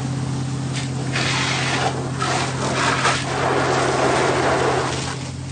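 Fire engine idling steadily while its hose sprays a stream of water, the rush of the spray swelling and easing in waves.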